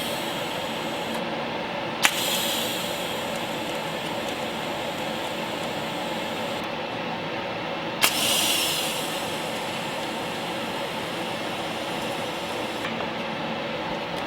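Electric welding arc tack-welding steel, burning in three stretches of a few seconds each; the second and third start with a sharp crack about two and eight seconds in. A steady hiss runs underneath throughout.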